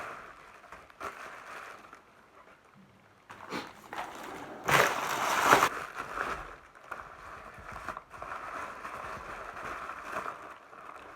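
Wrapping paper rustling and tearing as a ribbon-tied gift is unwrapped by hand, with scattered crackles and a louder burst of paper noise about five seconds in.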